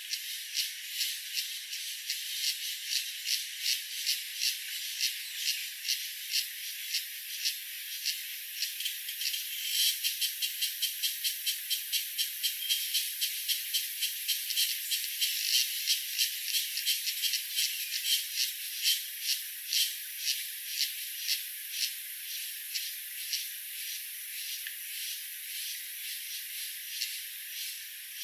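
A rattling insect call in even pulses over a faint steady hiss. The pulses come about two a second at first, quicken to three or four a second about ten seconds in, and thin out near the end.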